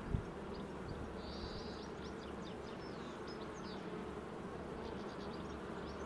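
Honeybee colony buzzing from an open hive during inspection: a steady, many-voiced hum. A light knock sounds just after the start.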